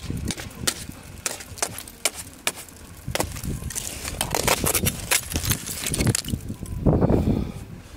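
Irregular sharp clicks and crunches of ice and frozen snow, with heavier crunches about halfway through and again about a second before the end.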